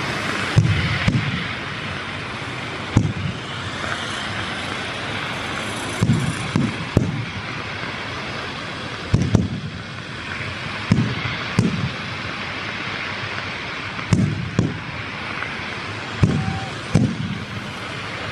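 Fireworks display: aerial shells bursting with sharp bangs, singly or in quick pairs every second or two, over a steady hiss.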